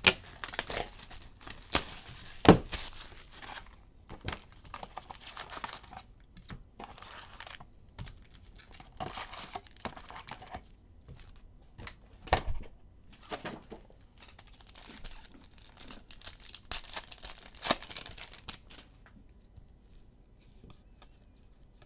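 Plastic wrapping and foil packs of a box of Donruss basketball cards being torn open and crinkled, with a few sharp snaps. The crackling dies down near the end.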